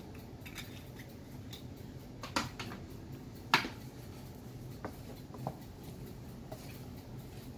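A few sharp knocks and clicks of kitchenware, the loudest about three and a half seconds in, then a wooden spoon stirring cooked rice and beans in a stainless steel pan, over a faint low hum.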